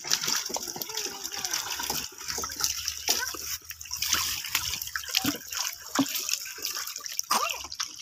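Shallow muddy water splashing and trickling, broken by many quick little splashes as small fish flap in the thin water left in a drained pond.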